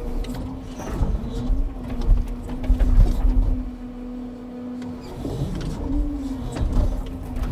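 Truck-mounted timber crane's hydraulics running with a steady hum that rises and falls in pitch twice as the crane works. Low knocks of pulpwood logs being handled come through underneath.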